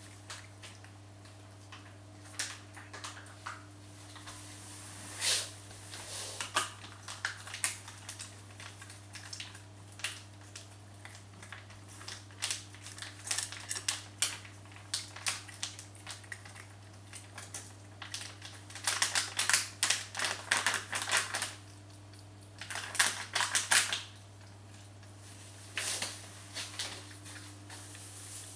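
A cat eating from its food bowl: irregular crunching clicks and bowl clinks, with two dense flurries of rapid clicking about two-thirds of the way through.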